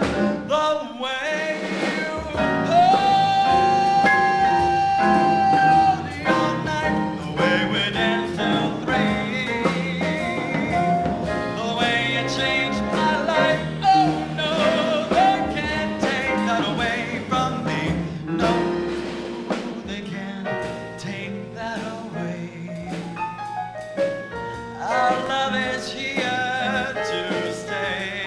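Male vocalist singing a jazz standard into a microphone, backed by a small jazz band with upright bass and drum kit. He holds one long note about three seconds in.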